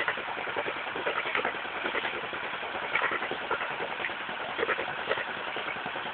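Volvo Penta MD7B two-cylinder marine diesel heard at its exhaust outlet, running steadily with a rapid, even train of exhaust pulses and somewhat louder surges every second or so.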